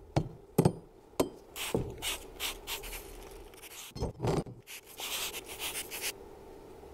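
Cast aluminium alternator end housings and small metal parts are set down and slid on a grate: sharp clinks and knocks, then scraping. Two heavier clunks follow about four seconds in. About five seconds in, a short hissing splash comes as liquid is poured over the parts from a canister.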